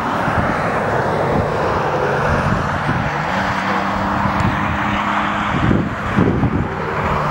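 A motor vehicle running close by: a steady rush of road noise under a low engine hum that steps up in pitch about three seconds in.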